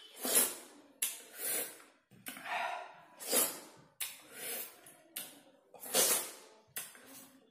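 A person eating fruit mixed with salt and chilli powder, with loud gasping, hissing breaths at the mouth about once a second between mouthfuls.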